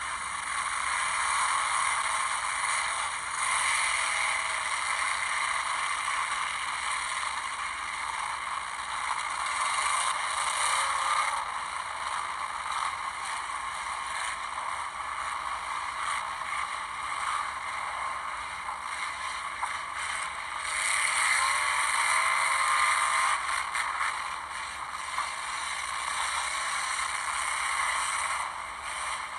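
Enduro race cars running laps, heard as a thin, steady wash of engine noise with no bass, through a camcorder's small playback speaker. A few faint engine notes rise and fall as cars go by.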